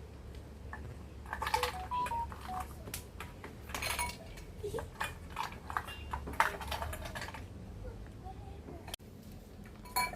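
Dishes, cups and cutlery clinking and clattering. A busy run of knocks and clinks, some leaving a brief ringing note, comes in the middle, with a single clink near the end.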